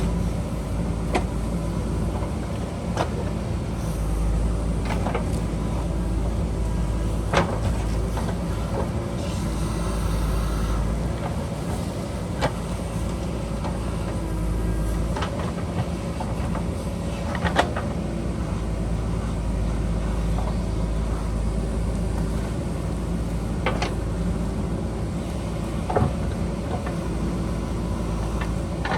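JCB backhoe loader's diesel engine running steadily, with occasional sharp knocks from the machine at work, about eight across the stretch.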